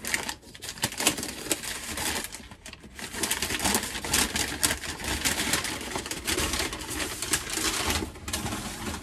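Paper wrapping crinkling and rustling as it is pulled off a clock by hand: a dense, crackly rustle with a brief lull about three seconds in.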